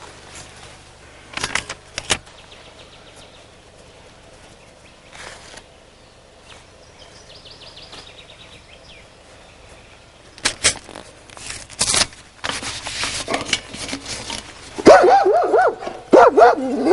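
Paste brush knocking and scrubbing against wooden boards, a few sharp knocks among quieter brushing. About two seconds before the end, a dog starts barking repeatedly, the loudest sound here.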